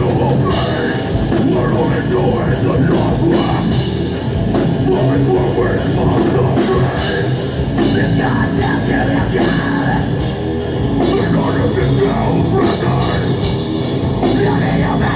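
Heavy metal band playing live, with a drum kit, loud and without a break.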